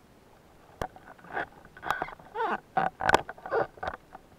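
Underwater handling noise: a string of knocks, clicks and short squeaky scrapes as the spear shaft holding two speared sharpsnout seabream is gripped and handled. The sharpest knock comes about three seconds in.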